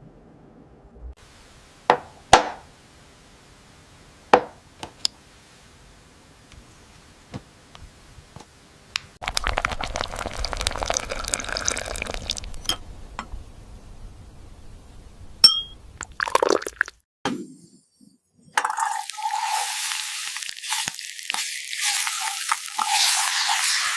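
Kitchen-utensil sounds: a few light clinks and taps, then a stretch of steady hiss in the middle and a louder, high hiss from about three-quarters of the way through.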